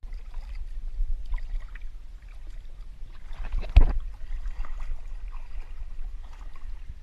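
River water splashing and sloshing close to the microphone, over a steady low rumble. A single sharp knock about four seconds in is the loudest sound.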